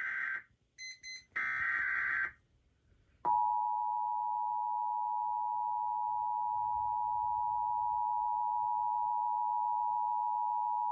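The last of the Emergency Alert System's SAME digital header bursts, loud screechy data bursts that carry the coded alert for receiving equipment. After about a second of silence the EAS two-tone attention signal (853 and 960 Hz together) starts sharply about three seconds in and holds steady for about eight seconds, announcing that an emergency voice message follows.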